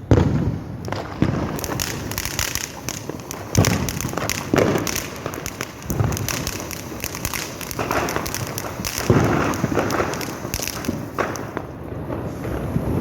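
Diwali firecrackers going off: a dense run of sharp cracks and crackling, with several louder bangs scattered through it.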